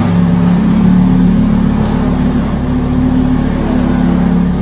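Lamborghini Huracán's V10 engine running through a Capristo aftermarket exhaust, loud and steady with small shifts in pitch.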